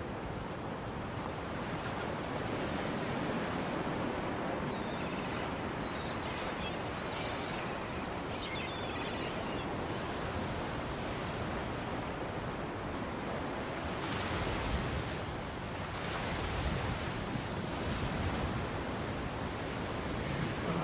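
Ocean surf washing onto a sandy beach in a steady, unpitched wash, with waves breaking louder about two-thirds of the way through and again a couple of seconds later.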